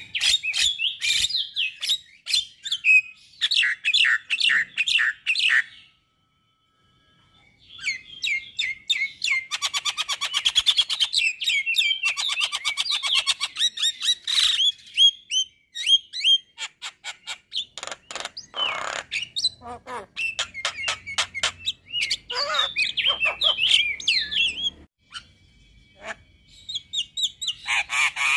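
Male Javan myna singing a long, varied chattering song of harsh, rapid notes, with a fast rattling run in the middle. The song breaks off briefly about six seconds in and again near the end.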